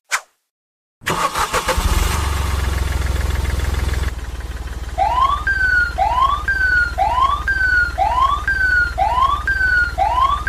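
Cartoon sound effect: a motor starts suddenly about a second in and runs with a fast flutter over a steady low hum. From about five seconds, a siren wails over it in a repeating two-part whoop, a rising sweep then a short falling tone, about once a second.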